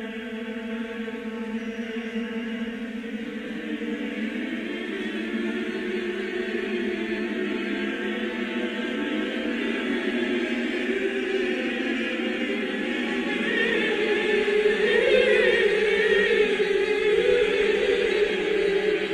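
Choral music: a choir singing long, chant-like held notes, swelling louder in the second half.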